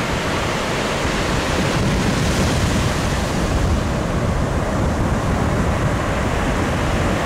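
Surf washing in over wet sand at the water's edge, a steady rushing noise, with wind buffeting the microphone.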